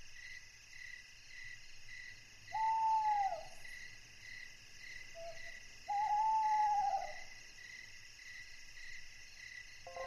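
Night ambience: insects chirring in a steady pulse of about three chirps a second, with an owl hooting twice, each hoot about a second long.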